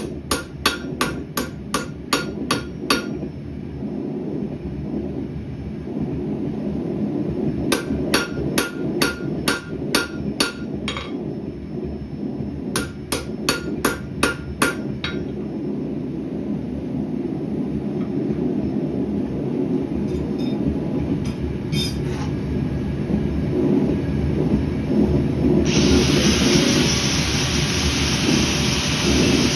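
Hand hammer striking rebar on an anvil in three runs of about seven or eight ringing blows, roughly three blows a second, with pauses between runs. A steady low roar runs underneath, and a loud steady hiss starts near the end.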